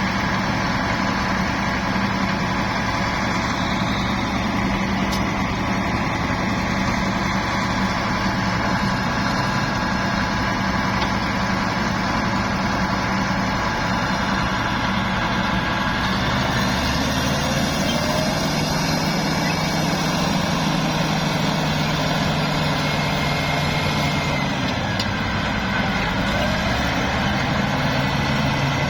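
Heavy diesel engine of earthmoving machinery running steadily, its tone shifting lower about halfway through as the engine load changes, with faint high squeals now and then.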